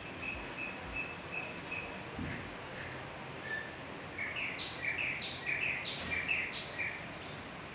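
Birds calling over a steady outdoor hiss: a run of short notes on one pitch, about three a second, for the first two seconds, then a quicker series of higher chirps from about four seconds in.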